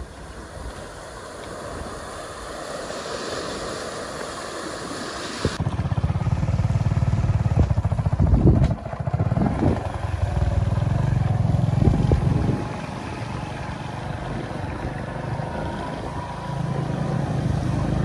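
Muddy floodwater rushing through a breach beside a low brick embankment wall; about five seconds in, it cuts suddenly to a strong, uneven low rumble.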